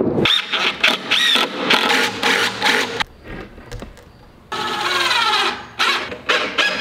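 Cordless drill driving screws into a plywood form, in short bursts, with the wood knocking as it is handled. The longest run starts about four and a half seconds in and lasts just over a second, its pitch sagging as the screw bites.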